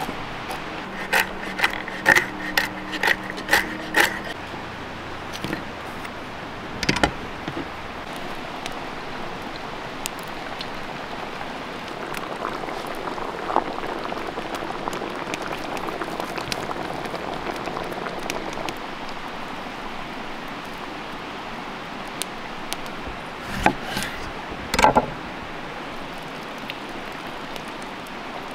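A knife chopping walnuts on a wooden cutting board: a quick series of about eight sharp chops in the first few seconds. After that, a steady crackling hiss of fish stew simmering in a cauldron over a wood fire, with a few separate knocks.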